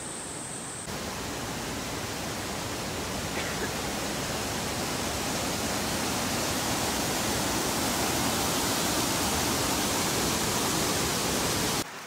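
Rushing water of a creek tumbling over boulders in rapids: a steady hiss that grows slowly louder. It starts about a second in, after a high steady insect buzz, and cuts off just before the end.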